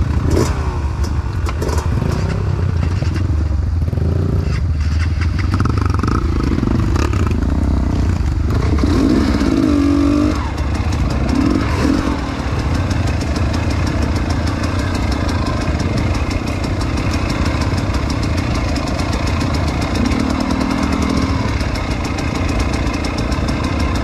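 Dirt bike engine running while riding an off-road trail, its revs rising and falling through the first half, then holding steadier. Scattered clattering knocks in the first half.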